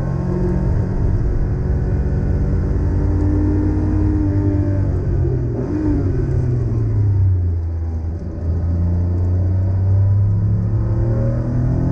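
1987 Porsche 911 Carrera 3.2's air-cooled flat-six, heard from inside the cabin on track. The engine note falls as the car slows for a corner, then rises again near the end as the driver gets back on the throttle.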